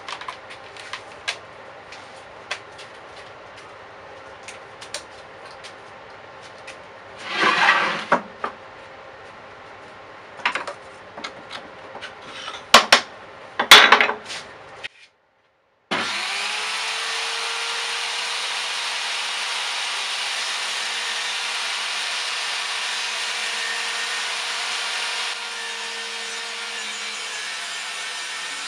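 Wood being handled on a saw table: scattered knocks, a brief scrape and two loud sharp knocks. A table saw's motor then starts, its whine rising as it spins up, and runs steadily with no wood being cut.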